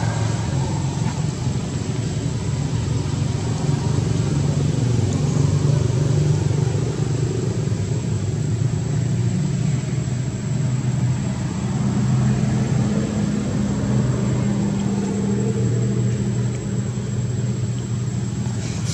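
Steady low engine hum, like a motor vehicle running, its pitch drifting slightly, with a faint steady high-pitched tone above it.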